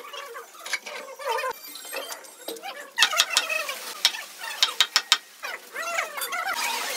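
Mallet knocking on a wooden door frame: a quick run of sharp knocks, several in a row, from about three to five seconds in, tapping the frame into position in its brick opening.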